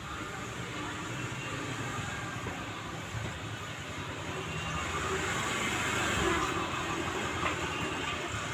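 Small motor scooter engine running as the scooter rides closer, growing louder to a peak about six seconds in.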